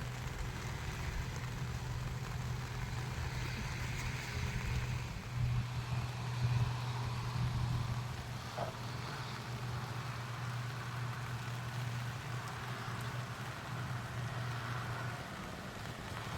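A vehicle's engine running with a steady low hum and road noise, as when driving slowly.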